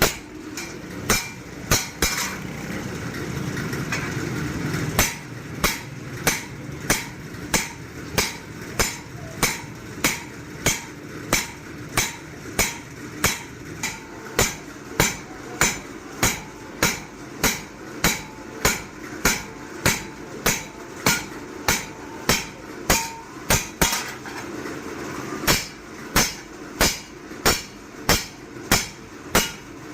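Hand hammer striking a forage-machine blade on an anvil in steady, evenly spaced blows, about two a second. For the first few seconds the blows are sparse over a steady rushing noise, which comes back briefly near the end.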